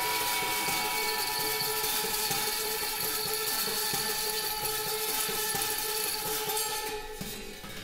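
Metal percussion scraped and rubbed against a spinning turntable, making a dense, steady metallic grinding wash with many sustained ringing tones over it. The high, bright part drops away briefly about seven seconds in.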